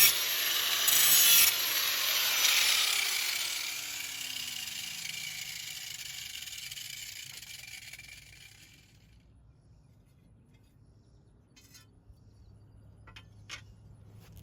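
Grinder grinding the steel edge of a lawn mower blade in a few harsh surges, then lifted off; its motor winds down with a falling whine and fades over several seconds. A few light clicks of handling near the end.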